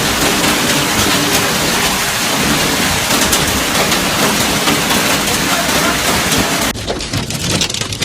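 Hail pelting down hard, a dense rattle of countless small ice impacts on surfaces. About seven seconds in it cuts to another recording where the separate hits stand out more.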